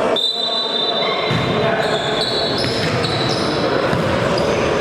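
Futsal game in a sports hall: the ball thudding against the floor and feet, with players' voices echoing.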